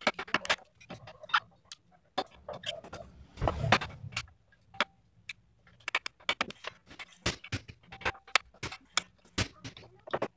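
Hammer knocking and prying at metal staples, nails and springs in a wooden sofa frame: irregular sharp clicks and knocks, with a louder scraping rattle about three and a half seconds in.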